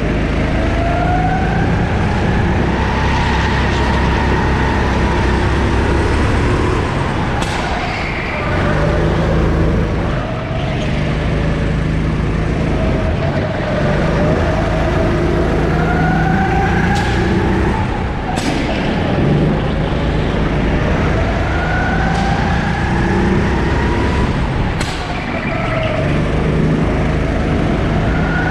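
Sodi go-kart's 270 cc four-stroke engine under load on a lap, its pitch climbing as it accelerates and falling back as it slows, over and over. A few sharp knocks cut through.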